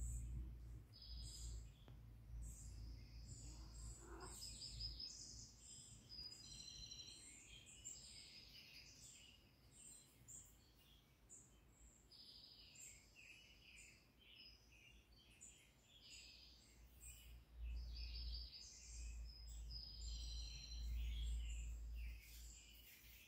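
Small birds chirping and twittering over and over, faint, with a low rumble underneath that grows louder near the end.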